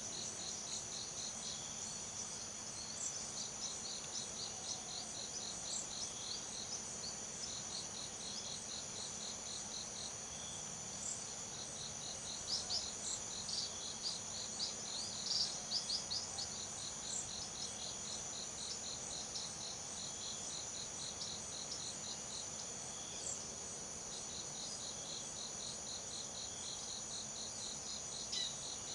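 Tropical forest insect chorus: a steady high-pitched drone under crickets chirping in an even pulse of about four a second, which drops out now and then. A cluster of short, louder chirps comes about halfway through.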